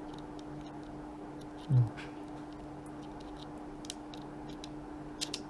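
Faint small clicks and taps of a memory card being handled and pushed into the card slot of a pair of camera glasses, over a steady low hum. A brief murmured voice sound, the loudest thing, comes a little under two seconds in.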